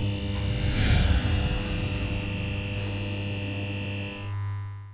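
Intro logo sound effect: a steady electric hum with a high held tone over it, and a whoosh about a second in. The high tone stops a little after four seconds, and the hum swells briefly and fades out near the end.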